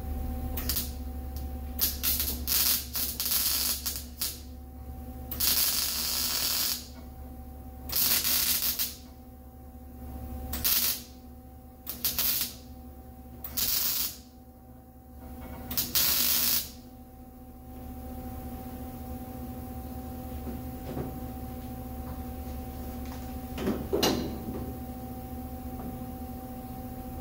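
MIG welder tack-welding a replacement sheet-steel trunk gasket channel onto a car body: a string of about ten short welds, each under a second to about a second and a half long, with pauses between. After that the welding stops, leaving a steady hum and a single knock near the end.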